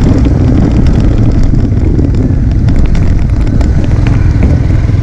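Yamaha R15 V3's single-cylinder engine running steadily under way, with wind rushing over the microphone.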